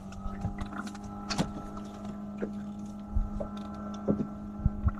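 Steady motor hum with a few light knocks over it, cutting off abruptly at the end.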